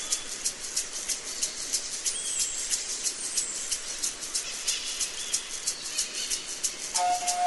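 Tropical rainforest ambience: a high, rapid, even pulsing about five times a second, with a few bird calls over it. Music starts near the end.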